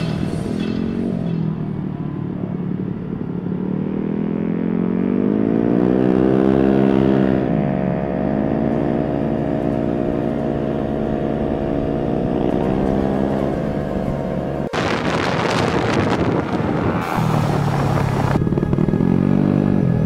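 A motorbike engine running on the move, its note rising and falling as the bike speeds up and slows. About 15 seconds in, the sound cuts abruptly to a few seconds of rushing wind noise on the microphone, and then the engine note returns.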